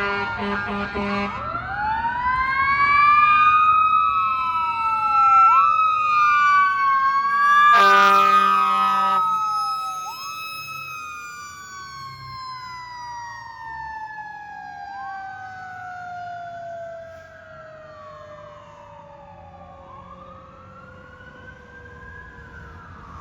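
Fire rescue truck responding with its sirens sweeping up and down and two air horn blasts, one at the start and one about eight seconds in. After the second blast one siren tone falls slowly in pitch as the sound fades.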